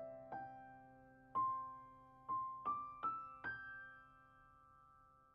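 Soft background piano music: single notes struck one after another over a held chord, climbing slowly in pitch, the last note left to ring out.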